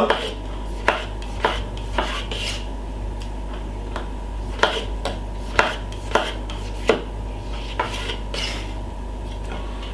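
Kitchen knife slicing a tomato on a wooden cutting board: irregular knocks of the blade striking the board, about one a second, over a steady background hum.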